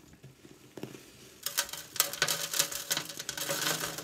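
Reptile chip substrate poured from a plastic bag into a clear plastic tank. A few faint clicks come first, then from about a second and a half in a dense rattling patter of chips hitting the tank floor.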